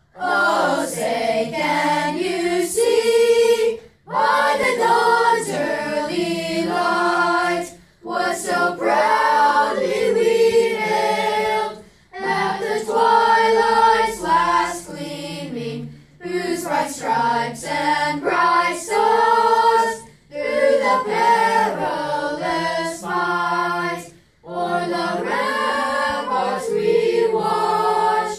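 A boys' vocal ensemble singing a national anthem unaccompanied. The singing comes in phrases of about four seconds, with short breaks for breath between them.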